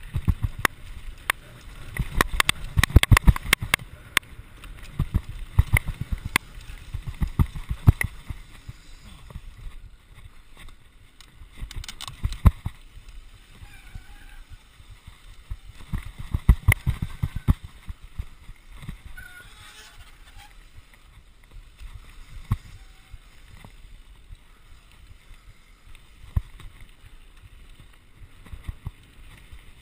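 Santa Cruz Nomad mountain bike clattering and rattling over a rough, stony dirt singletrack on a fast descent, with sharp knocks in bursts, loudest about two to four seconds in and again around twelve and seventeen seconds.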